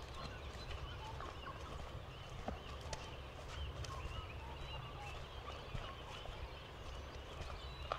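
Birds chirping and calling in many short, scattered notes, with a few footsteps.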